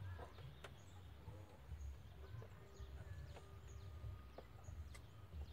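Faint outdoor ambience: a low rumble with a few soft clicks and faint short high chirps.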